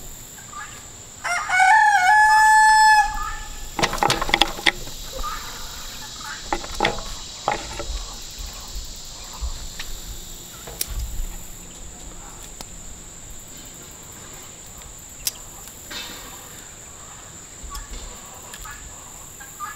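A rooster crows once, about a second in, a pitched call under two seconds long that is the loudest sound here. Afterwards come scattered sharp clicks of kitchen shears cutting through a quail carcass, over a steady high drone of insects.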